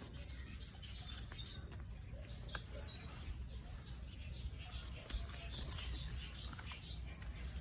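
Loose, dry soil scraped and patted with a small plastic trowel: faint scattered crackles and light patter of clods crumbling and falling.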